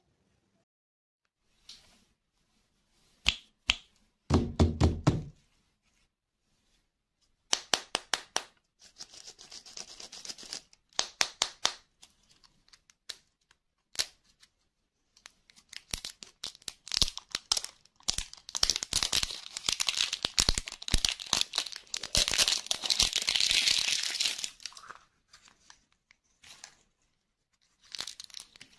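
Hands tearing and crinkling the plastic wrapper off a ball-shaped lollipop, with clicks and knocks as the hollow plastic shell is handled and opened. After scattered clicks early on, a long stretch of steady crinkling and tearing runs through the second half.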